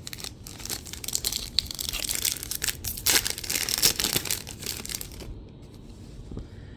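Crinkling and tearing of a foil trading-card pack wrapper being torn open and handled. Dense crackle for about five seconds, then a quieter rustle.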